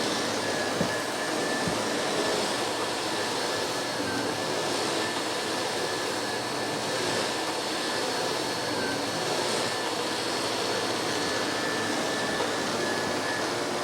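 Miele S5 Callisto canister vacuum cleaner running steadily, vacuuming carpet with its powerhead: a steady rushing of air with a high motor whine that dips slightly twice.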